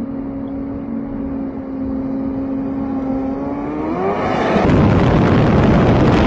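Racing jet ski engine running flat out as it crosses a lake, a steady high whine that climbs in pitch about four seconds in. Half a second later it cuts to the much louder onboard rush of engine, wind and water from a jet ski at over 100 mph.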